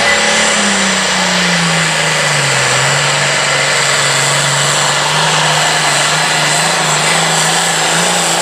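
Pro farm class pulling tractor's diesel engine running hard under load on a pull. Its pitch drops over the first two to three seconds, then holds steady.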